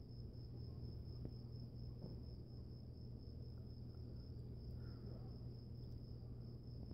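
Crickets trilling steadily in one continuous high-pitched, faint chorus, with a low steady hum underneath.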